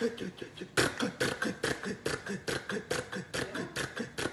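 A man imitating a two-cylinder tractor engine with his mouth, a steady rhythmic putt-putt of short sharp pulses at about three a second.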